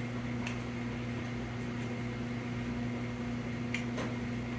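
Steady low electrical hum, with a few light taps or clicks about half a second in and twice near the end.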